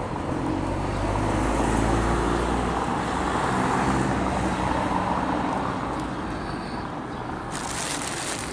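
Motor vehicle traffic noise: a steady low engine rumble, with a brief rush of hiss near the end.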